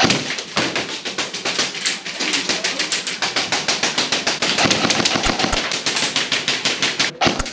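Airsoft guns firing a rapid, near-continuous string of shots, about eight to ten cracks a second. The string starts suddenly and breaks off briefly near the end.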